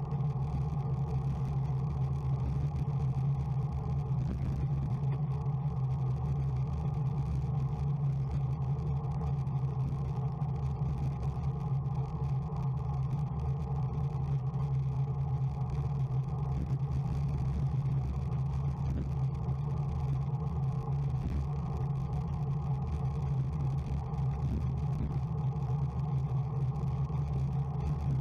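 A steady, unchanging low drone of a moving vehicle, holding the same pitch with no breaks or events.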